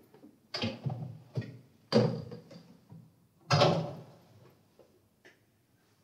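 A series of sharp knocks and clunks, each with a short ring, spaced irregularly about a second apart, the loudest about two and three and a half seconds in.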